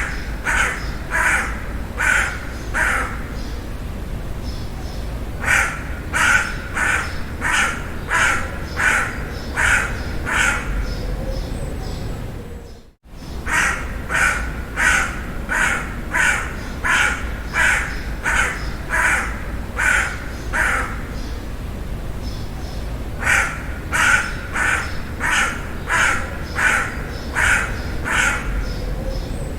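Crow cawing in runs of rapid, evenly spaced caws, about two a second, with pauses of a second or two between runs, over a steady low background rumble. The sound drops out briefly near the middle.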